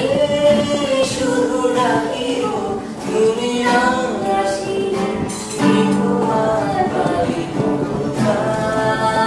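Background music: a song with sung vocals over instrumental accompaniment.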